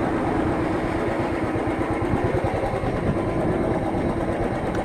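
Royal Enfield Thunderbird's single-cylinder engine running steadily, with a fast, even low pulsing.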